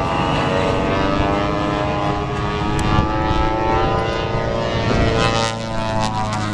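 Twin radial engines of a Beechcraft 18 drone steadily through an aerobatic dive, the pitch shifting as the plane comes down.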